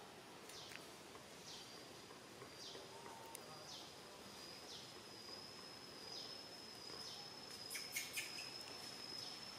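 Insects and birds in the trees: a steady high insect whine, with a short falling high call repeated about once a second. A few sharp clicks come about eight seconds in.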